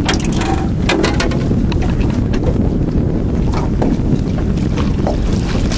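Steady low wind rumble on the microphone, mixed with the noise of the boat and water.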